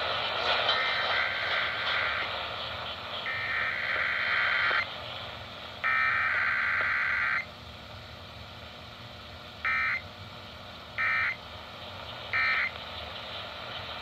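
Emergency Alert System (EAS) SAME digital data tones from a radio: three header bursts of buzzing two-tone data, each about a second and a half long, then three short end-of-message bursts about a second apart. Radio hiss fills the gaps between them.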